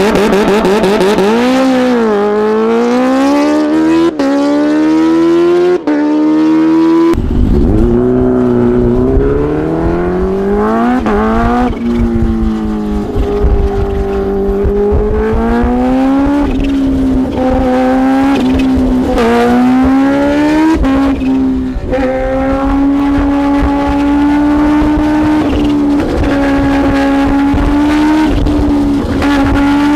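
Kawasaki Ninja H2R's supercharged inline-four engine running loud, its pitch rising and falling again and again as it revs, then holding a steady pitch over the last several seconds.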